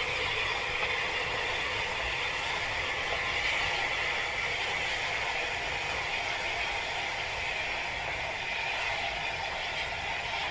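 Battle of Britain Class steam locomotive hauling a passenger train past at a distance: a steady hiss and rumble of the running train.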